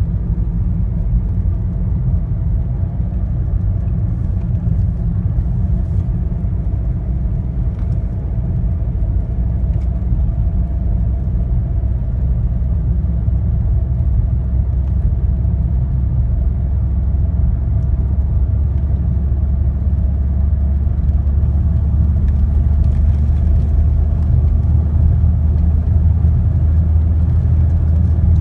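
Car driving on a paved road, heard from inside the cabin: a steady low rumble of engine and road noise that grows a little louder in the second half.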